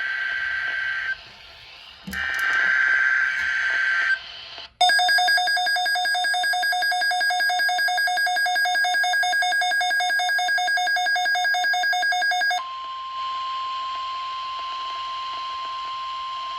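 NOAA Weather Radio Emergency Alert System tones. It opens with buzzy, screeching SAME data bursts of the digital alert header. About five seconds in, an electronic alarm starts, pulsing rapidly for about eight seconds, and then gives way to the steady, pure 1050 Hz weather radio warning alarm tone.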